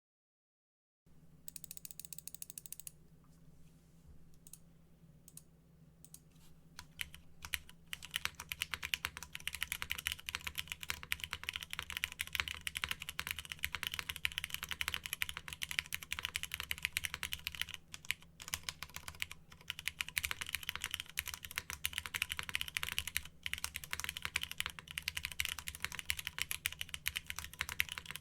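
Typing on a Paramount Keebs Plaque80 mechanical keyboard with Cherry MX Red linear switches on an aluminium plate and Aifei R2 keycaps. After a second of silence come a short flurry and a few scattered single keystrokes, then fast continuous typing from about seven seconds in, with a brief pause past the middle.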